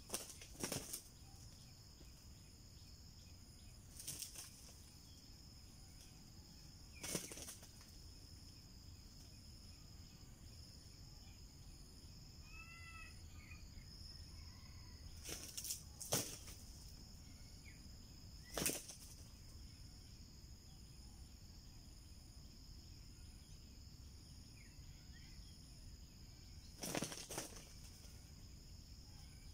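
Junglefowl rooster flapping its wings in about seven short, scattered bursts, over a steady high-pitched insect drone.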